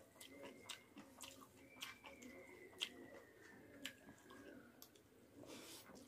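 A person chewing a mouthful of masaura curry and rice, with soft wet mouth clicks and smacks about every half second. A faint, high, thin tone sounds in the background through the first few seconds.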